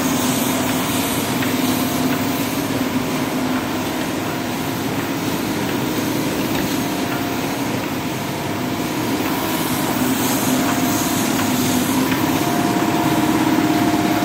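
Heidelberg MOF-H sheetfed offset printing press running, a steady mechanical hum and clatter whose pitch rises slightly in the last few seconds.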